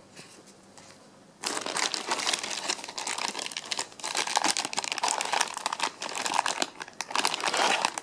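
Thin plastic protective bag around a modem router crinkling as the router is handled and lifted out of its packing tray. The sound starts about a second and a half in and keeps going as a dense run of irregular crackles.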